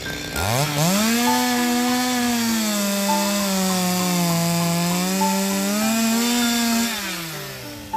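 Two-stroke chainsaw revving up sharply a moment in, running at high speed with its pitch sagging and recovering in the middle, then winding down near the end.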